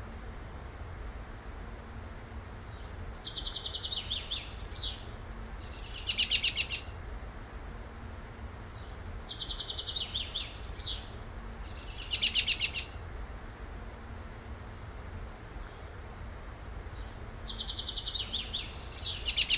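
Birdsong ambience repeating about every six seconds: a loud rapid trill is the most prominent call, with thin high whistles and a run of chirping notes between, over a steady low rumble.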